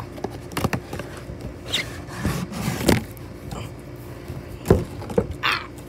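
Cardboard toy packaging being handled and pulled open by hand: irregular scraping and rustling of cardboard with scattered sharp knocks, the loudest near the end.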